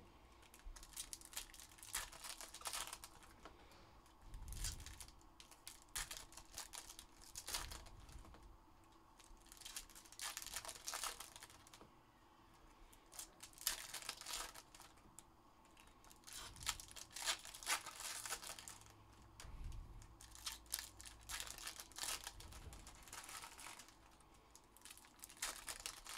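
Foil wrappers of Topps Chrome soccer card packs being torn open and crinkled by hand, in short bursts every couple of seconds.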